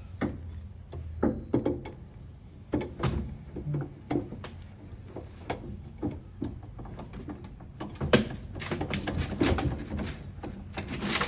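Irregular clicks and knocks, coming thicker and louder in the last few seconds, over a low steady hum.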